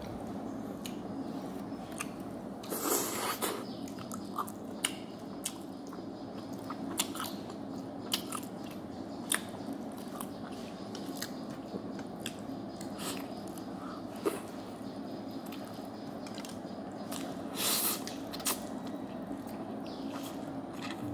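Close-up eating sounds of a person chewing a soft steamed bun and black bean noodles: wet mouth clicks and smacks scattered throughout, with two short, louder rushes about three seconds in and near the end. A steady low hum sits underneath.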